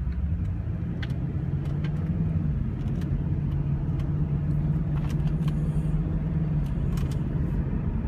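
2002 Ford Thunderbird's 3.9-litre V8 and road noise heard from inside the cabin while driving and picking up speed at about 2,000 rpm: a steady low drone with a few faint clicks.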